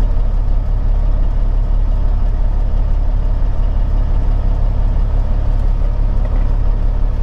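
Peterbilt 379 semi-truck's diesel engine running steadily at low speed, a constant low drone heard inside the cab.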